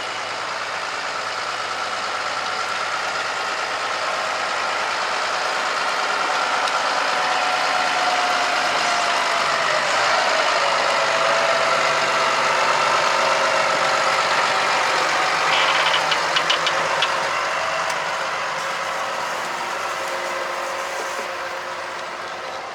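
A vehicle engine running steadily, growing louder toward the middle and then fading, with a falling change in pitch about ten seconds in and a few short rattling clicks around sixteen seconds.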